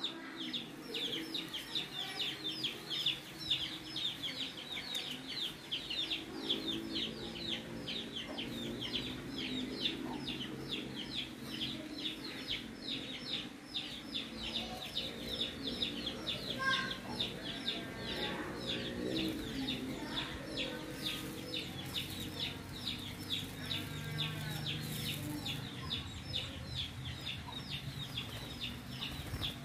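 Chickens: a steady run of short, high, falling peeps, about three or four a second, with lower clucking calls mixed in from about six seconds in.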